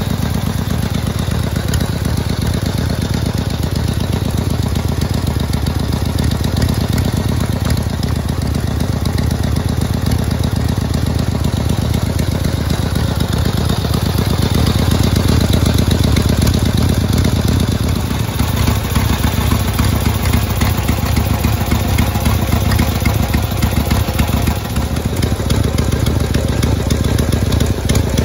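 1979 Harley-Davidson Ironhead Sportster's 1000 cc V-twin idling steadily through chrome cocktail-shaker style straight-through mufflers, warmed up. It grows a little louder for a few seconds about halfway through.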